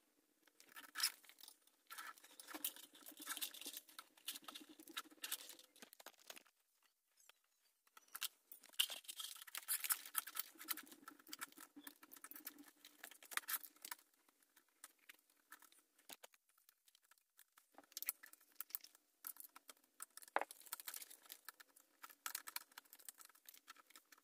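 Close handling noise of hands working on a motorcycle's wiring and plastic parts: rapid small clicks, scratches and rustling as the exhaust-valve servo motor and its cables are pulled free. It comes in three busy spells with short pauses between.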